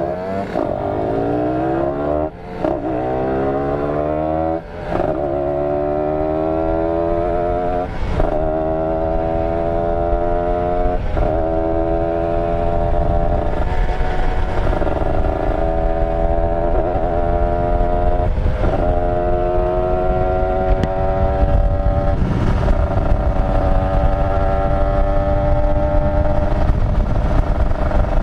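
Two-stroke Kawasaki Ninja 150RR engine under way, accelerating. In the first few seconds it climbs steeply up through the gears with a short dip at each shift. It then runs at high revs with brief dips in pitch every two or three seconds, over a low rushing noise that grows as speed builds.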